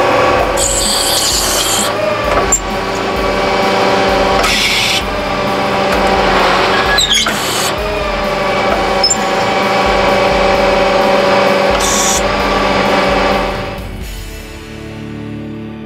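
Crary Revolution Ditcher with its hydraulic cross auger running, a steady mechanical hum with a grinding rasp and short hissing bursts, as the auger is shifted toward its up position. The sound fades out near the end.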